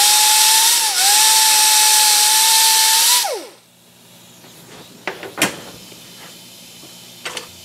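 Air-powered die grinder with a small abrasive disc grinding a small steel piece. It gives a steady high whine with air hiss, dips briefly in pitch about a second in, then spins down and stops after about three and a half seconds. A few light metallic taps follow as the piece is handled.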